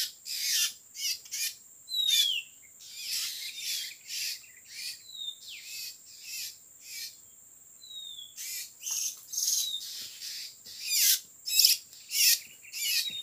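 Oriental magpie-robins giving harsh, rasping calls, about two a second, mixed with a few short falling whistles.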